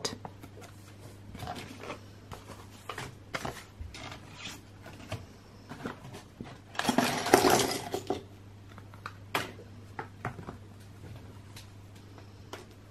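Handling a Playmobil figure blind pack: the plastic packet rustles and small hard plastic figure pieces click and clatter as it is opened and the pieces are tipped onto the table, with a louder stretch of rustling about seven seconds in.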